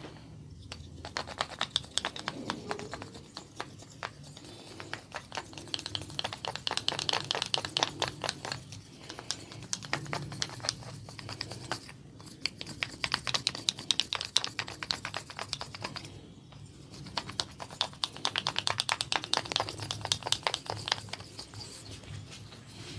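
Barber's hands working the client's oiled hair and scalp, making rapid crackling clicks in four bursts of a few seconds each, with short pauses between.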